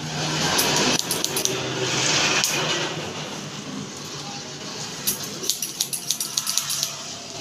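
Barber's scissors snipping hair in quick runs of sharp clicks, several a second, near the end. Over roughly the first three seconds a louder rushing hiss covers them.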